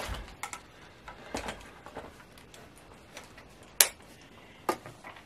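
Scattered clicks and knocks from a foldable mini exercise bike's metal frame and pedal unit being folded and handled, with a couple of dull thumps early on and the sharpest click a little before four seconds in.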